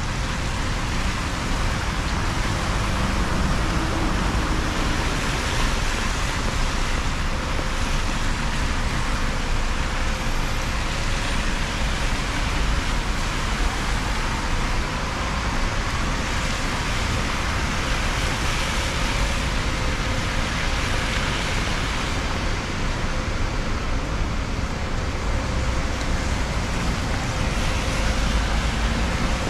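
Road traffic on rain-soaked asphalt: cars driving past with a continuous hiss of tyres on the wet road, swelling now and then as one passes close.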